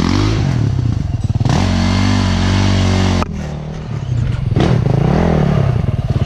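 KTM enduro dirt bike's single-cylinder engine running at low revs while ridden slowly. The throttle is held open for nearly two seconds from about one and a half seconds in, then shut suddenly, and there is one more short rev about five seconds in.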